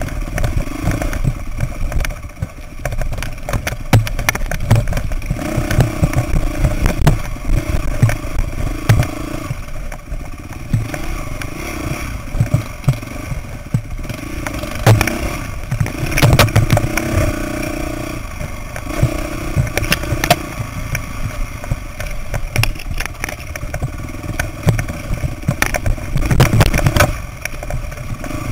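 Dirt bike engine running at low revs on a rocky downhill trail, the revs picking up in short bursts of throttle every few seconds, with frequent knocks and clatter from the bike jolting over rocks.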